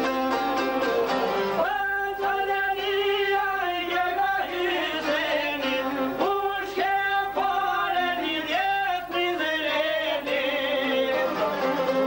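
Albanian folk song: a man's voice sings long, ornamented phrases over a strummed long-necked çifteli lute and a fiddle. The voice enters about two seconds in and drops out near the end, leaving the instruments playing alone.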